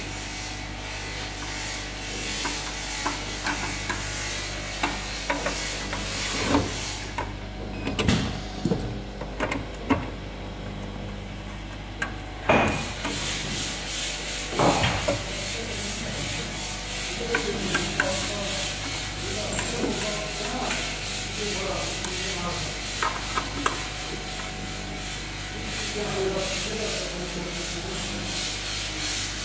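Clicks, knocks and rubbing of hands and tools on the metal guide rails and fittings of a bottle-filling machine's conveyor during changeover, over a steady hum and high hiss. The sharpest knocks fall about a quarter to half of the way through, where the hiss drops out for a few seconds.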